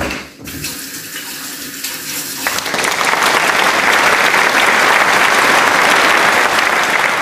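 Kitchen tap running into the sink for hand-washing. The flow gets much stronger about two and a half seconds in and stops abruptly near the end.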